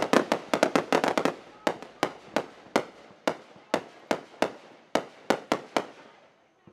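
Fireworks going off: a quick run of sharp bangs and crackles, then single bangs spaced further apart, fading away near the end.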